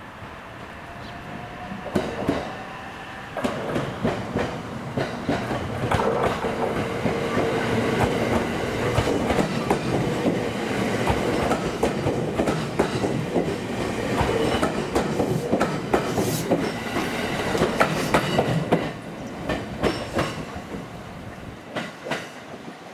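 JR West 227 series electric train passing close by, its wheels clattering rhythmically over the rail joints. The rattle starts about two seconds in and drops away shortly before the end.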